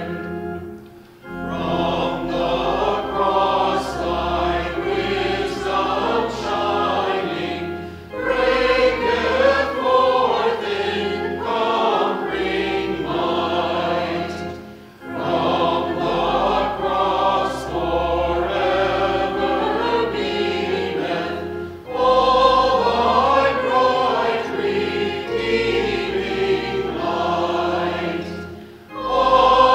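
Church choir of mixed men's and women's voices singing a hymn in parts, in phrases about seven seconds long with brief breaks between them.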